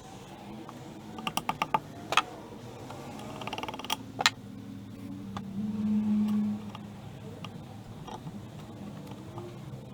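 Small mechanical clicks and knocks: a quick run of five clicks, a louder knock, a short rattle and two more clicks. A brief steady hum follows about six seconds in.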